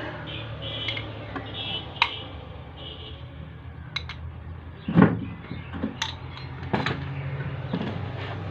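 Metal clicks and clinks of a car alternator being taken apart: a screwdriver working in the rear end housing and parts set down on a wooden bench, with one heavier knock about five seconds in, over a steady low hum.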